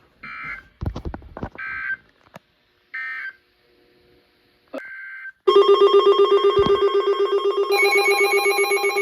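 Emergency Alert System activation: four short bursts of screeching digital SAME header data with a few clicks among them, then, about five seconds in, a loud, rapidly pulsing alarm tone from alert receivers, with more alarm tones joining a couple of seconds later. It signals an incoming severe weather warning.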